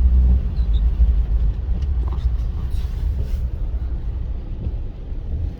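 Steady low rumble of a Mitsubishi Pajero iO's engine and tyres on the road while driving, heard from inside the cabin.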